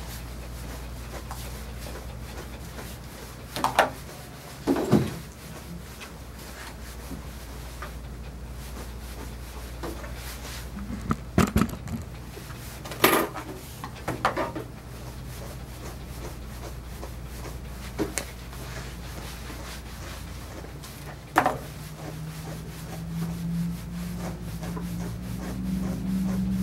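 A brush drawn repeatedly through a Coton de Tulear's long coat, with soft rubbing strokes over a steady low hum. A few short sharp clicks and knocks are scattered through, and a low droning tone comes in near the end.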